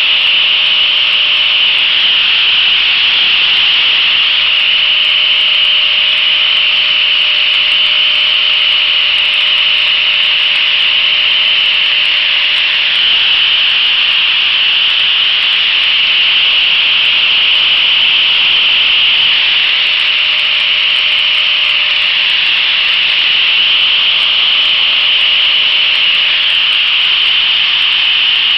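Purpleheart wood being ground on a power sanding disc: a steady gritty hiss of wood against the abrasive, with a faint steady whine from the motor.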